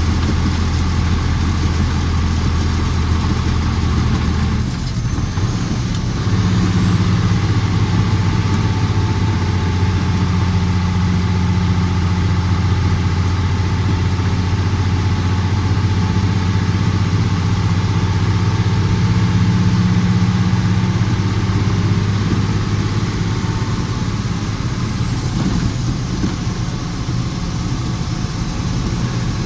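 Autocar truck's diesel engine running under way, a steady low drone. About five seconds in the note drops out briefly and comes back a little higher, then eases lower again near the end.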